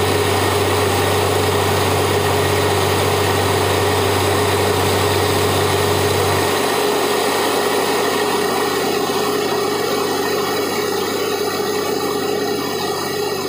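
Borewell drilling rig running steadily, its compressed air blowing rock dust and cuttings out of the bore. The low part of the drone drops out about six and a half seconds in.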